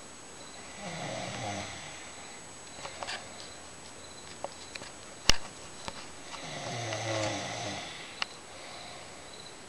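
A woman snoring in her sleep: two snores, each about a second and a half long, some five seconds apart. A single sharp click about five seconds in is the loudest sound.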